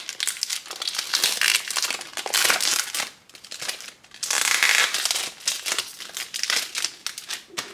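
Clear cellophane wrap being peeled off a cardboard perfume box, crinkling and crackling in loud stretches with a short lull about three seconds in, then softer crinkles near the end.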